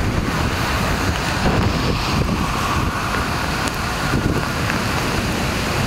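Strong thunderstorm wind buffeting the microphone, with a steady rushing noise and no let-up.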